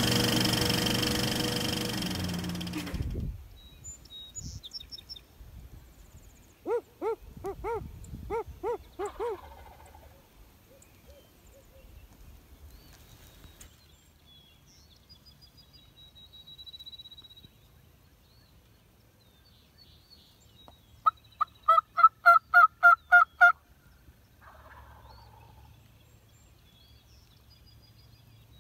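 Music fades out over the first three seconds, leaving faint high bird chirps. A turkey calls in two runs of evenly spaced notes: about eight notes a quarter of the way in, and a louder run of about a dozen notes about three-quarters of the way through.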